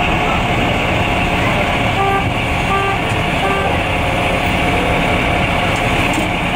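A fire engine's diesel engine running steadily. A few short electronic beeps come in between about two and three and a half seconds in.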